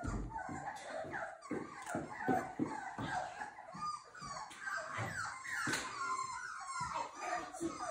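Beagle puppies whining and yipping: many short, high calls, several falling in pitch, with soft thumps between them.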